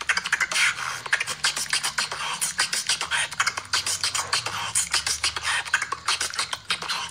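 A woman beatboxing: a fast, dense run of vocal kick, snare and hi-hat sounds, with a low held bass tone underneath.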